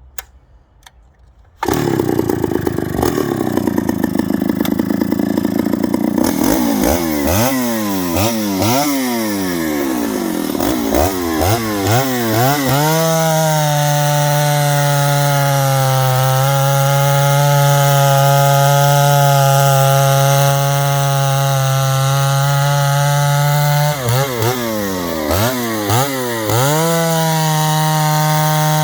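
Stihl 076AV two-stroke chainsaw engine starting suddenly about two seconds in. It is revved up and down in a string of throttle blips, then held steady at high revs for about ten seconds. A second run of blips follows before it is held at high revs again.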